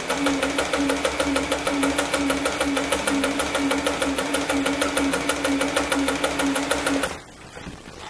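Olimatic 4000 household electric sewing machine running at steady speed while sewing a test seam: its motor hums and the needle mechanism ticks out a fast, even rhythm of stitches, stopping about seven seconds in.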